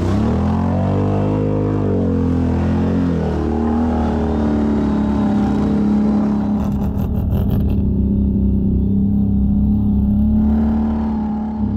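ATV engine running under the rider, revving up and easing back down in the first few seconds, then holding a steady drone.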